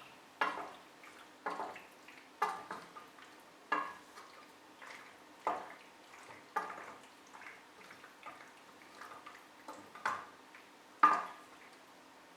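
Kitchenware clattering: a run of sharp knocks and clinks with a short ring, about one a second, the loudest near the end.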